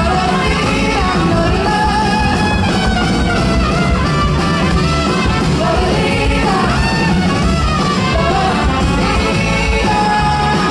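A female lead vocalist singing live with a full band, loud and continuous.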